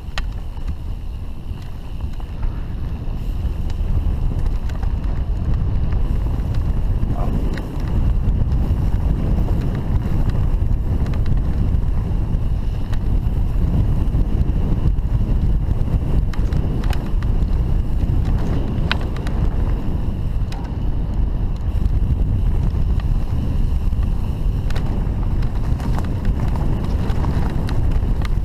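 Mountain bike riding fast down a dirt forest trail, heard as a loud steady rumble of wind buffeting the action camera's microphone and of tyres on the ground, with an occasional sharp click or rattle from the bike.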